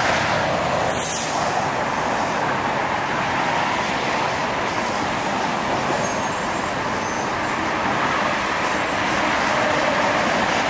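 A steady, even roar of city noise, traffic-like, with no distinct pitch or rhythm, swelling slightly near the end. The recordist takes it for a strange sound coming from the sky.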